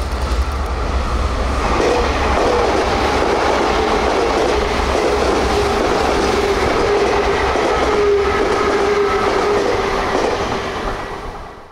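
A Sotetsu 9000 series electric train passing close by, with a steady rolling rumble of wheels on rail and a faint whine underneath. The noise fades as the last car goes by near the end.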